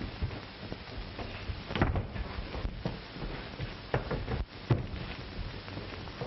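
Blows and thuds of a fistfight, a sharp knock every second or so, heard over the steady hiss and low hum of an old film soundtrack.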